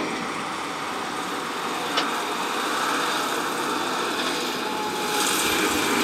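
Street traffic: a heating-oil tank truck drives past with steady engine and tyre noise, and the noise grows louder from about five seconds in as another truck approaches. There is a single short click about two seconds in.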